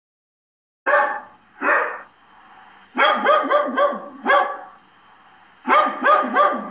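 A dog barking: two single barks about a second in, then two quick runs of about five barks each.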